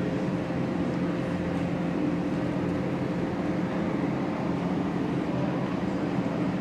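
Steady, unchanging hum of airport terminal background noise, a low drone with a few fixed low tones.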